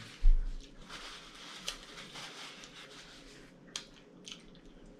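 A dull thump on the tabletop near the start, then soft chewing and rustling with a few small clicks as she eats at the table.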